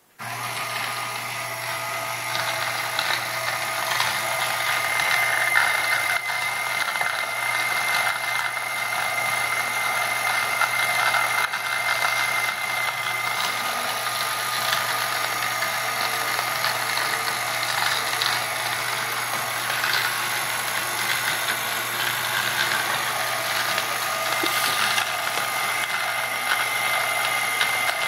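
KitchenAid stand mixer's motor running steadily, driving a Hario Slim conical burr coffee grinder through a right-angle drill attachment and chuck: a steady motor hum and whine over the gritty rattle of coffee beans being ground. It starts abruptly at the beginning.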